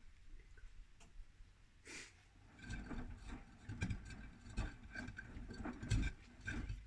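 Gorenje WaveActive front-loading washing machine drum turning slowly with snow inside, giving irregular soft thuds and knocks from about three seconds in.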